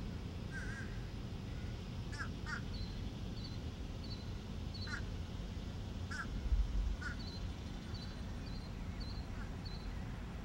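Birds calling outdoors: about seven short calls scattered through, with a faint, quicker chirp repeating higher in the background, over a steady low rumble that swells briefly about six and a half seconds in.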